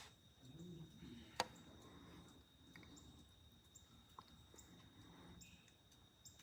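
Near silence: faint background with a steady high-pitched whine, a few faint high chirps, and one sharp click about a second and a half in.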